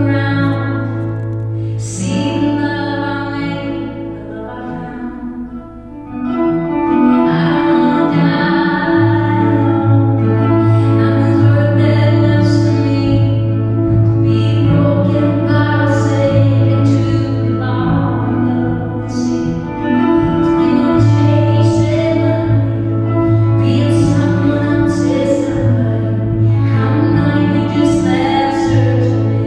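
A woman singing a song live while accompanying herself on guitar, heard through the stage sound system. The music softens briefly about five seconds in, then comes back fuller.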